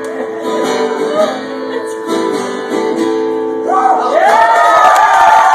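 Acoustic guitar strummed, playing the closing chords of a song, which stop about four seconds in. A small crowd then breaks into cheering and whoops.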